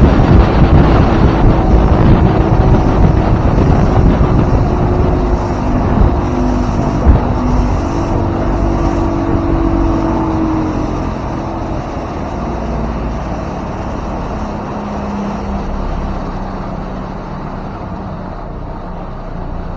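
2000 StarCraft motorboat under way, its engine and the water rushing past the hull mixed with heavy wind on the microphone, growing gradually quieter. A single sharp knock stands out about seven seconds in.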